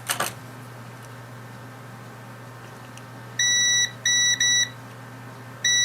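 A digital multimeter's continuity buzzer giving short, steady, high-pitched beeps as its probes touch the key fob's circuit board, each beep signalling a closed circuit between the probes. Three beeps come in quick succession a little past halfway, and a fourth starts near the end. A single click is heard at the very start.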